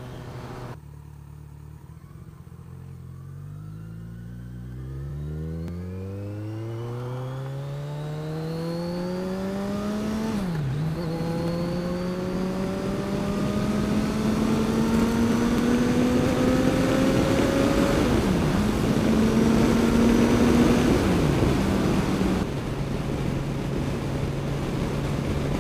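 Kawasaki Ninja 1000's inline-four engine pulling away and accelerating, its pitch climbing for about ten seconds, then a gear change and a long stretch of steady cruising with a few brief throttle dips. Near the end the note drops to a lower steady pitch. Wind rush builds as the speed rises.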